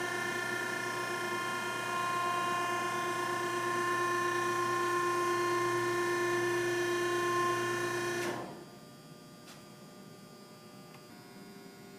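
Hydraulic pump and motor of a Fox vertical baler running with a steady whine while the press reverses back up in automatic mode. It shuts off suddenly about eight seconds in, when the ram reaches the top, and leaves a faint electrical hum.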